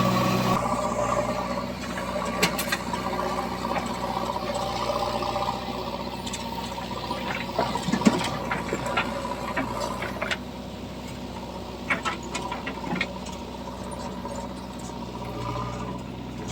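Diesel engine of a tractor or backhoe running steadily, with scattered metallic clanks and knocks.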